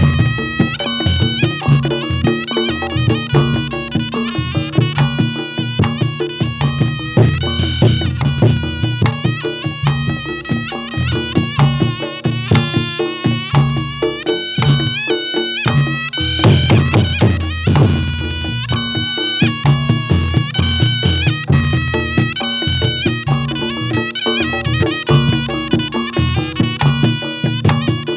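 Reog Ponorogo gamelan music: a slompret, the Javanese shawm, plays a reedy melody over steady, rapid drumming.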